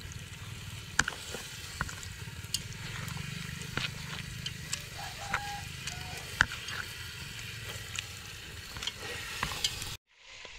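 Batter-coated small shrimp and lòng tông fish with shredded taro deep-frying in hot oil: a steady sizzle with scattered sharp crackling pops. The sizzle breaks off abruptly for a moment near the end, then resumes.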